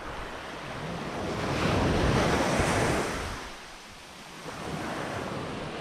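Sea surf on the shore: a wave breaks and washes in, swelling about a second and a half in and falling away after about three seconds, then the wash builds again. Wind buffets the microphone.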